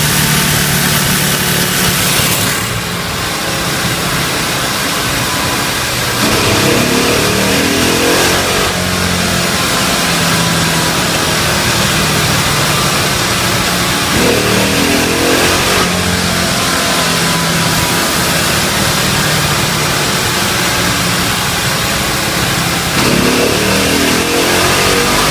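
Tuned Honda GX200 single-cylinder four-stroke kart engine (a Stage 6, 24 hp build) running loudly through its break-in. Its revs climb three times, about every eight seconds, between spells of steadier running.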